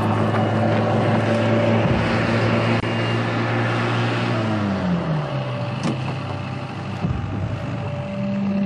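A motor vehicle's engine running steadily; its pitch drops about halfway through as it slows and eases off, and picks up again near the end. A single sharp click comes about six seconds in.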